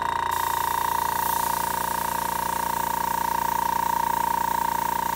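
Meeden MD-AC200 airbrush compressor running steadily under pressure, a constant hum with a strong steady whine.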